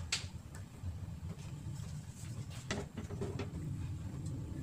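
A few light knocks from a nonstick frying pan being handled on the stovetop, over a low steady hum.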